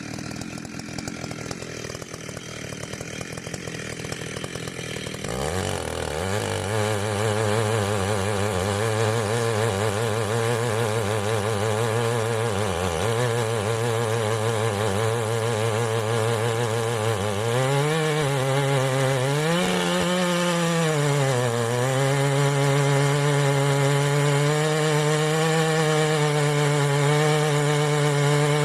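Ported Stihl MS880 big-bore two-stroke chainsaw, with a dual-port muffler and unlimited coil, running quieter for a few seconds and then throttled up to a loud, high-revving run. The pitch dips and recovers several times, and after the dips it holds at a higher pitch.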